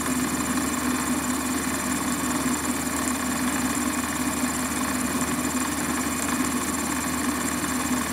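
Warco lathe running steadily while a 5 mm twist drill cuts a pilot hole into a metal part, an even machine hum throughout.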